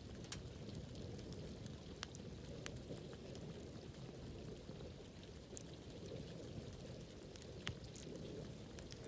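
Wood campfire burning: a steady low rush of flames with irregular sharp crackles and pops, a few of them louder.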